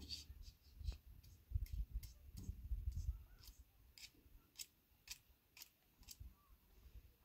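A series of short, sharp snipping clicks at an uneven pace, about two to three a second, with low thuds of handling during the first three seconds.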